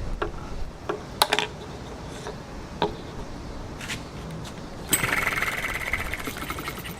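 A few sharp clicks and knocks as the OKMO Retrol Ball Top Monitor model engine is handled, then about five seconds in a fast, rattling run of rapid strokes for about two seconds as the engine is spun over to try to start it.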